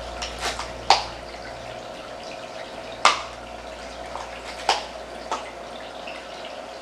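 Small plastic toy-figure pieces clicking and tapping as they are handled and fitted together: about half a dozen sharp, irregular clicks, the loudest about three seconds in, over a faint steady hum.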